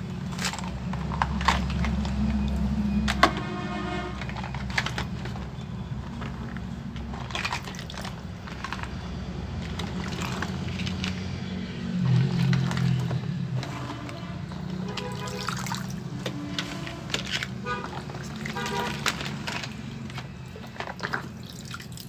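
Background music, with hard plastic toy trucks clacking as they are handled and water dripping and splashing as a toy is lifted out of a tub.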